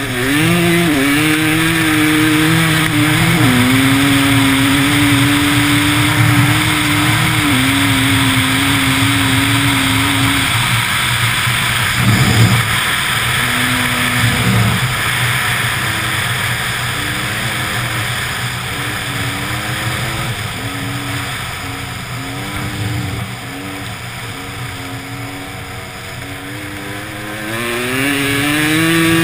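Engine of a vehicle driving on a snowy ice track, revving up at the start, settling to a steady pitch after a step down a few seconds in, dropping lower with a brief thump about twelve seconds in, then rising again near the end. Constant wind and tyre noise underneath.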